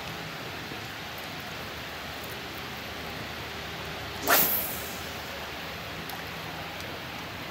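A spinning rod being cast: one sharp whoosh about four seconds in as the rod swings through and line runs off the reel, over a steady background hiss.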